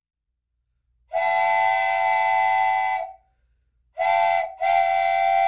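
A whistle sounding a steady chord in three blasts: one long blast of about two seconds, a short one, and another longer one.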